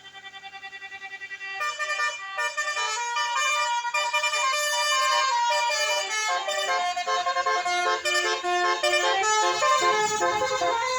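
Bus 'telolet' horn, a set of musical air horns, playing a quick tune of stepping notes. It grows louder over the first two seconds, and engine and road noise rise under it near the end.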